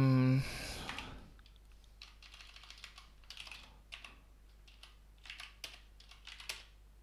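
Typing on a computer keyboard: irregular runs of light key clicks from about two seconds in, after a short steady hum at the very start.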